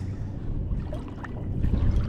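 Wind buffeting the microphone as an uneven low rumble, with faint water lapping and a few light ticks.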